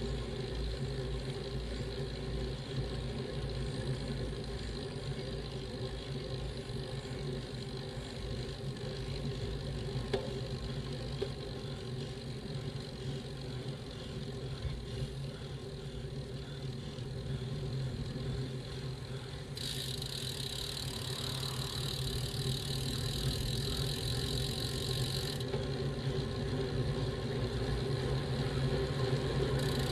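Riding noise picked up by a bicycle-mounted camera: a steady rumble of tyres on the road and wind, with a low hum and a light rattle. About twenty seconds in, a high hiss starts suddenly and stops about six seconds later.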